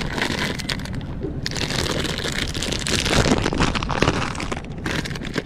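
Wind buffeting an action camera's microphone on an open boat, mixed with the crinkle of a plastic candy bag being handled.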